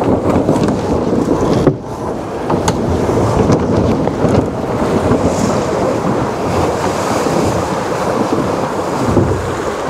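Wind buffeting the microphone and water rushing and splashing along the hull of a J70 sailboat driving hard, heeled over in strong wind.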